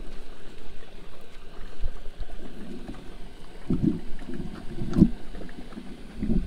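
Wind rumbling on the microphone, with irregular rustles and a few sharp knocks, the loudest about five seconds in.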